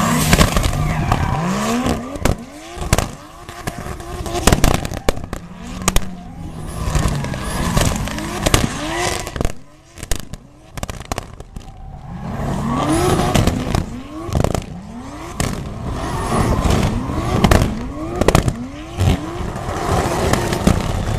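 2JZ-engined Lexus IS drift car revving hard again and again, each rev climbing quickly and falling away, with sharp exhaust pops and crackles between revs and tyres squealing through the slides.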